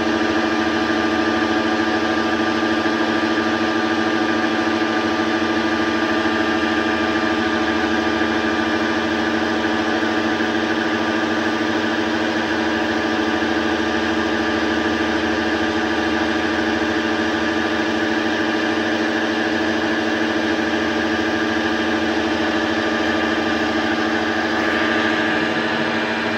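Metal lathe running steadily, its motor and gearing giving a constant whine made of several fixed tones, with a slight swell near the end.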